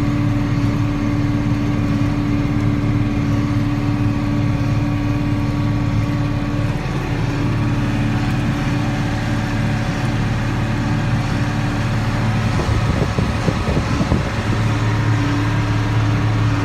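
John Deere 4960 tractor's diesel engine running steadily while pulling a big square baler. About 13 seconds in, the steady note wavers for a second or two, with a few irregular knocks, then settles again.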